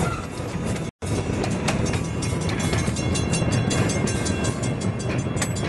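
Open-air tour train riding along its track, heard from aboard: a steady rumble with the rattle and clatter of the cars. The sound cuts out for a moment about a second in.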